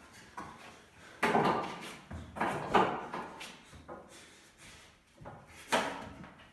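A light wooden frame knocking and scraping on a concrete floor: three loud hits with short scrapes, about a second in, around two and a half seconds in, and near the end.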